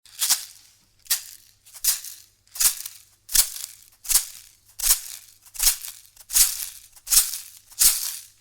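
Shamanic hand rattle shaken in a slow, even beat, a little over one shake a second. Each shake is a sharp rattling swish that fades quickly.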